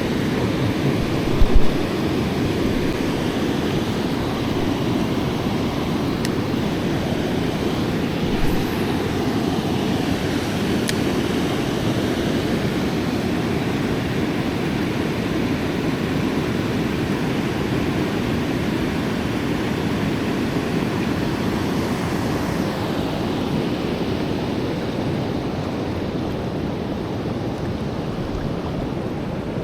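Fast river current rushing over rocks: a steady wash of water noise, with a loud low thump about a second and a half in.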